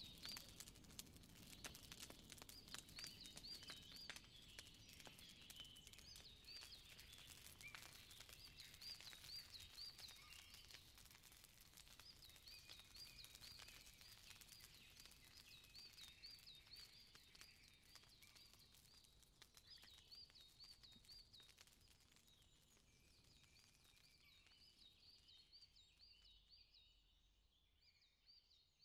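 Faint outdoor nature ambience: repeated high chirping calls in quick groups of three or four, with scattered crackling clicks. It fades out gradually near the end.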